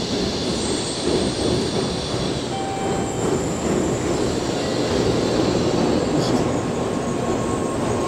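N700-series Shinkansen bullet train pulling into the platform and slowing as its cars glide past, a steady rushing hum of the train running by, with a faint whine partway through.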